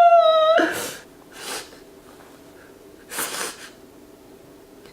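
A man's high, drawn-out crying wail that breaks off about half a second in, then three short, sharp sobbing breaths.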